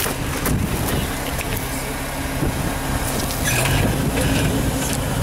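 Modified Jeep Wrangler TJ's engine running at low revs as it crawls over rock, with scattered knocks and crunches. The engine picks up briefly about three and a half seconds in.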